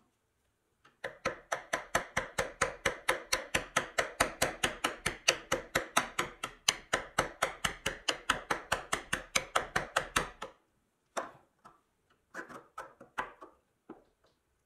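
Small hammer tapping rapidly on the end of a rusty steel axle rod, about five light metal-on-metal strikes a second for some nine seconds, driving the axle out through a toy truck's wheel hub. The strikes stop, and a few light knocks of the wheel and rod being handled follow near the end.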